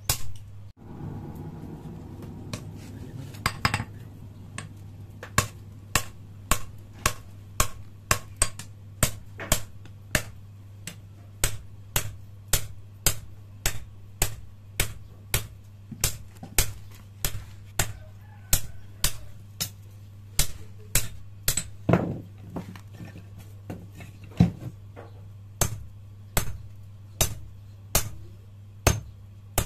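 Hand hammer striking a red-hot leaf-spring steel machete blade on a small anvil, sharp ringing blows about one and a half to two a second, with a steady low hum underneath. One heavier, duller blow falls about two-thirds of the way through.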